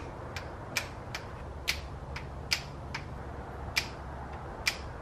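Hand ratchet clicking as the nuts holding the rebuilt VANOS unit to the BMW S52's cylinder head are tightened: single sharp clicks about twice a second, over a faint low hum.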